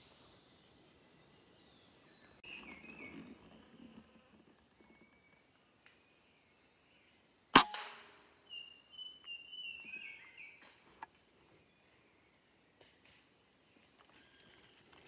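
A single sharp shot from a scoped rifle about seven and a half seconds in, with a short fading tail. Short chirps follow over the next few seconds, and a steady high insect drone runs underneath.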